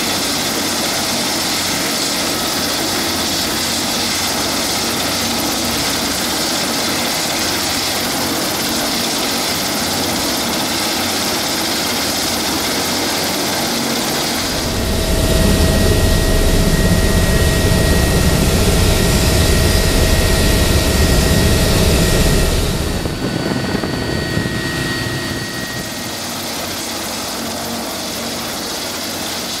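Twin-engine Bell 429 helicopter running on the ground with its rotors turning: a steady turbine whine over rotor noise. About halfway through it grows louder with a deep rotor rumble, then eases back down a few seconds from the end.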